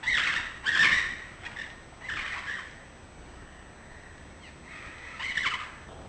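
Maroon-bellied conures calling in short harsh bursts: one at the start, a louder one about a second in, another around two seconds in, and a last one near the end.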